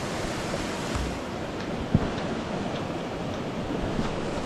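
Steady rushing of a shallow stream flowing over a rocky riverbed, with a short knock about two seconds in.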